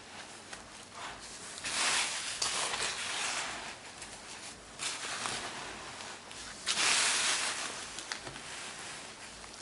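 Chunks of baking soda being crushed: crumbly crunching and crackling in several bursts, the loudest about two seconds in and again near seven seconds.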